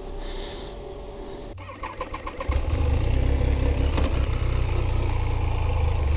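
1997 Triumph T509 Speed Triple's three-cylinder engine turning over briefly on the starter, catching about two and a half seconds in and then idling steadily.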